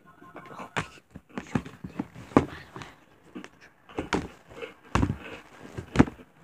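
Close handling noise of slime and a plastic slime container: irregular wet squishes and sharp clicks, with about five louder snaps spread through.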